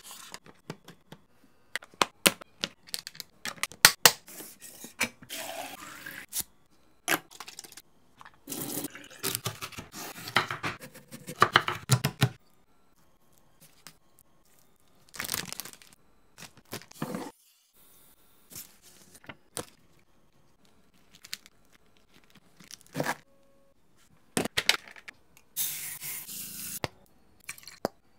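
Kitchen prep sounds in separate bursts: sharp clicks and taps, crinkling and tearing of plastic wrap on a tray of raw chicken, and spells of running or pouring liquid.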